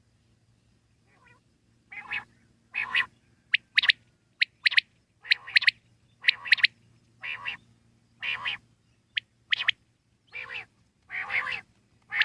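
Quail calling over and over after about two seconds of silence: short, harsh calls in quick runs, mixed with sharp high double notes.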